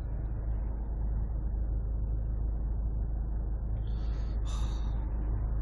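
Steady low rumble of a car's interior, the engine and road noise heard from inside the cabin. A brief higher-pitched sound about four seconds in.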